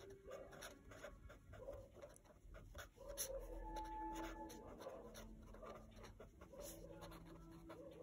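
Pen writing on paper: faint scratching in many short strokes.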